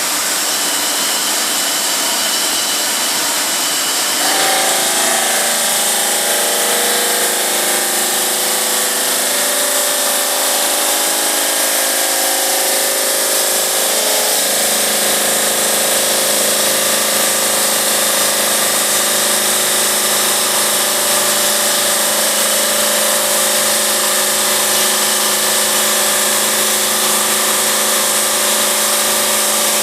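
GMM Brio Easy CNC bridge saw cutting 4 cm granite, its diamond blade running with a steady hiss of spray. A pitched whine sets in about four seconds in, and the sound deepens about fourteen seconds in.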